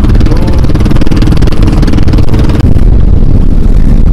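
Engine of a motorized outrigger boat (bangka) running steadily under way, loud and close, a constant low mechanical drone.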